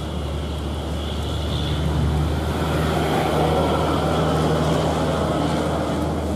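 A motor vehicle's engine running steadily with a low hum, growing a little louder about two seconds in and then holding.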